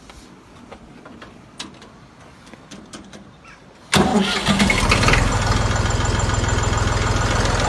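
Restored old tractor's diesel engine starting with a sudden catch about four seconds in, then settling into a steady idle. Before it, only a few faint clicks.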